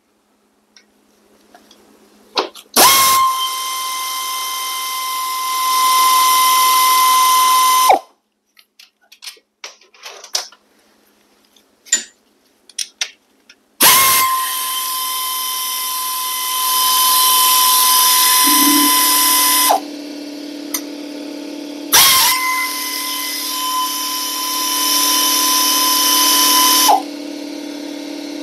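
Pneumatic air ratchet running in three bursts of about five seconds each, a steady high whine with air hiss, spinning out the oil pan bolts on a 1968 Moto Guzzi V7 700. Small metallic clicks come between the bursts. A steady low hum starts about two-thirds of the way in and carries on underneath.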